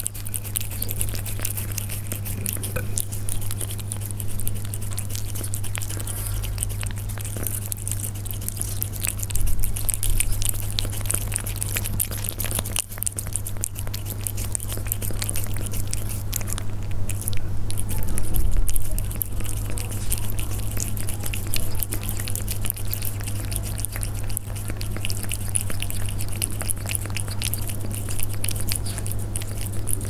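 Persian cats eating close to the microphone: quick, crisp chewing and biting clicks that go on throughout, over a steady low hum.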